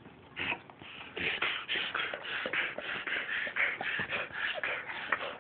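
Dog reverse sneezing: a rapid, even run of sharp, noisy pulls of air through the nose, about four to five a second, starting about half a second in.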